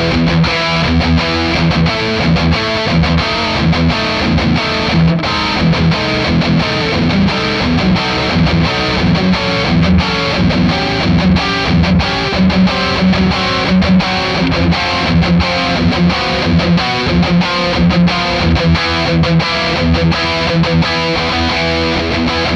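Distorted electric guitar played through the Overloud TH-U amp simulator's 'Kally OD2' high-gain amp model (Blade+Savage) into a Bogie 4x12 Vintage 30 cabinet model miked with an SM57 and MD421, playing a steady 80s-style rhythm riff with regular picked attacks.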